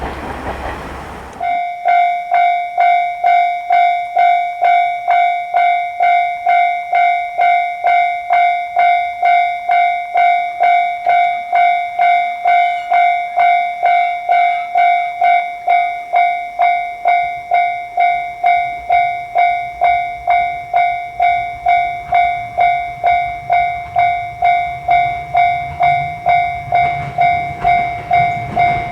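Japanese railroad crossing's electronic warning bell ringing its 'kan-kan' tone about twice a second, starting about a second and a half in after a stretch of broad noise. A low rumble, typical of an approaching train, builds under the bell in the second half.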